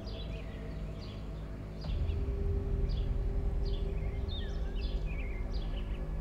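Birds chirping, short falling calls about once a second, over a low steady drone with held tones that swells louder about two seconds in.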